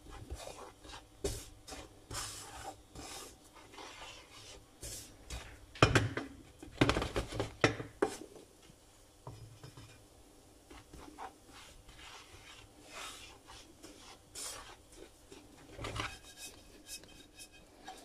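Wooden spoon scraping and stirring breadcrumbs as they toast in a frying pan. The strokes are irregular, with a few louder scrapes about six to eight seconds in.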